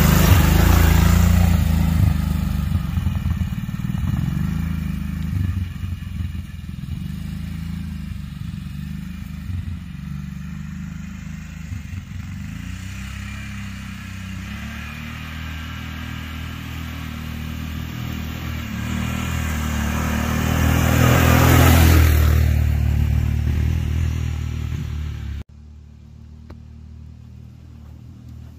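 Kawasaki Brute Force 750 ATV's V-twin engine running as the quad drives past close by, fading as it rides off, then swelling again as it passes back about three-quarters of the way in. Near the end the sound drops suddenly to a fainter engine further away.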